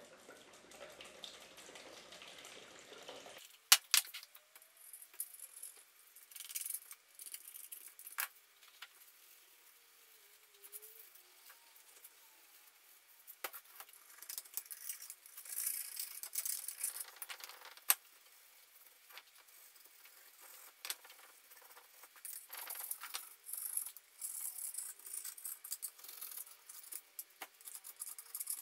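Flat metal scraper scraping paint, softened by stripper, off the cast-iron parts of a vise: uneven scratching and scraping strokes, with a few sharp clicks of the blade against the metal, the loudest about 4 and 18 seconds in. For the first few seconds, liquid is poured from a can.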